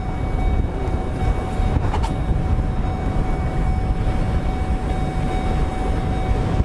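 Steady low roar of a violent EF4 tornado, with a thin steady high-pitched tone over it.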